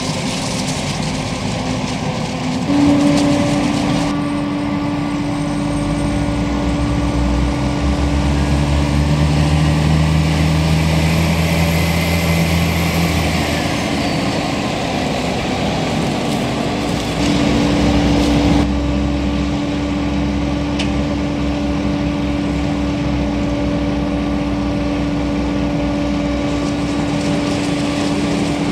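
Claas Jaguar 980 forage harvester chopping corn for silage, with a Fendt 820 Vario tractor and dumper trailer running alongside: a steady machine drone with a constant hum. The sound shifts abruptly a couple of times.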